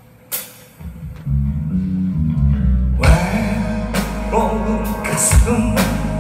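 Live rock band in an instrumental passage. It opens quiet with a couple of sharp hits, a bass guitar line comes in about a second in, and drums and electric guitar join at full volume about three seconds in.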